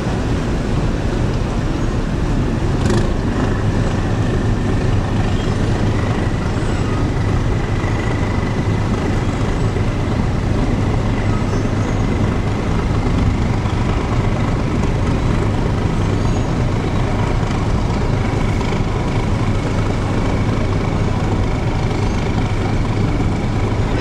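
Boat engines running in a steady low drone at close range, with a faint high whine over it.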